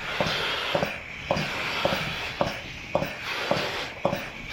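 Milking machine running: the pulsator clicks rhythmically, about two clicks a second, over a steady vacuum hiss.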